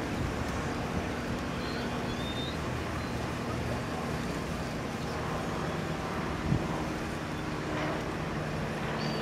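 Steady city traffic rumble, with a few short high bird calls and a single brief thump about two-thirds of the way through.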